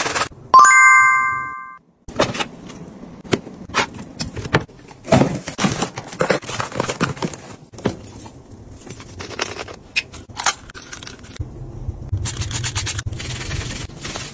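A bright bell-like chime that dies away over about a second near the start, then a run of light clicks and knocks as small items are set into and moved around in plastic storage bins.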